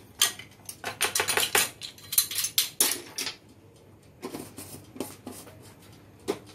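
Kitchen utensils clicking and clattering against each other and the bowl: a quick run of sharp clicks for about three seconds, then a few scattered ones.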